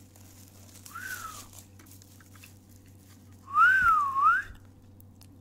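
A person whistling: a short rising-and-falling note about a second in, then a louder, longer note that wavers up, down and up again a couple of seconds later.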